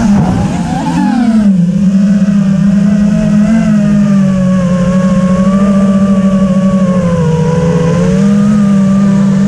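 FPV quadcopter's electric motors and propellers buzzing with a steady pitched drone. The pitch swings up and down with the throttle in the first second or so, then holds fairly steady, with a brief dip and recovery about eight seconds in.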